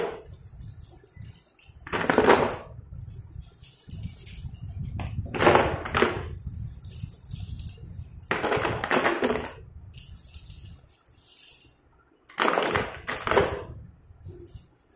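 Handfuls of slate pencils clattering as they are dropped into a cardboard box, in four bursts a few seconds apart, over a steady low hum.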